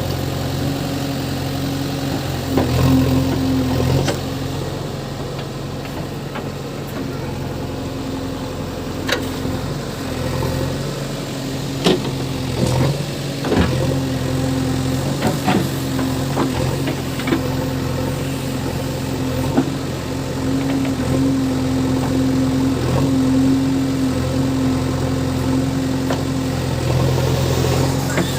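A JCB 3DX backhoe loader's diesel engine runs steadily, swelling and easing as the machine works, with scattered sharp knocks and clanks over it.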